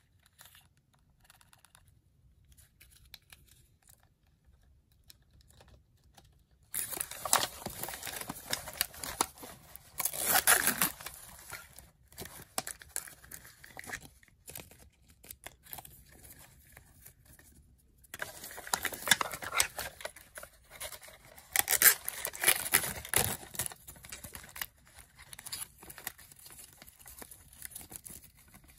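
Plastic wrappers of Zuru 5 Surprise Toy Mini Brands blind bags crinkling and tearing as they are unwrapped by hand. Quiet handling at first, then two spells of louder crinkling and tearing lasting several seconds each.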